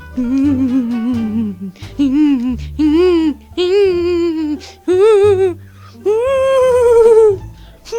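A person's voice making a run of wavering, hummed or sung noises with a quick warble, about six of them, each pitched a little higher than the one before, the last held longest. Steady low background music runs underneath.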